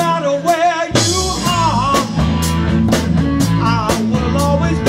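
Live rock band: a man sings lead over electric guitar and a drum kit, with the drums striking regularly.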